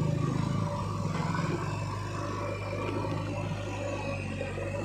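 A steady low engine drone with an even, fine pulse, holding level throughout.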